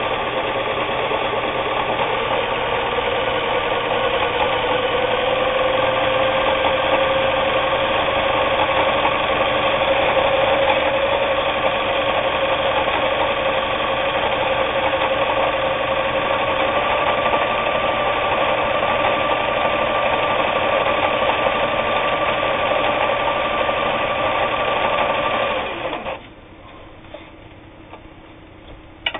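Kenmore 158.19802 sewing machine running steadily while it sews a cam-driven decorative stitch pattern. Its motor whine rises a little in pitch over the first few seconds, then holds, and stops suddenly near the end, followed by a couple of faint clicks.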